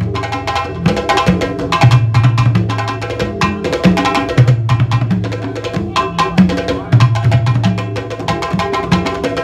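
Percussion-led music: a dense run of quick, sharp drum strikes over a low sustained bass note that comes back about every two and a half seconds.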